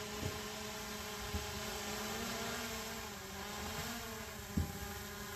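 Quadcopter drone's propellers humming steadily as it descends to land, the pitch wavering slightly as the motors adjust. There are a couple of faint low knocks.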